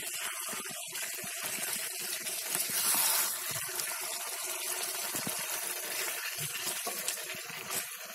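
Chicken pieces frying in a thick onion-and-spice masala in a frying pan, a steady sizzling hiss with the scrape and squelch of a wooden spatula stirring them, loudest about three seconds in. This is the kosha stage, the chicken fried down covered in its own juices until the oil separates.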